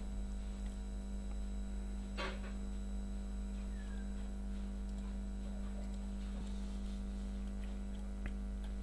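Steady electrical mains hum with a stack of evenly spaced overtones, broken by one brief soft noise about two seconds in and a few faint ticks.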